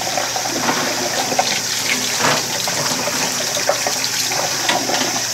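Tap water running into a stainless steel sink, splashing irregularly as a freshly caught amago is rubbed clean under the stream by hand.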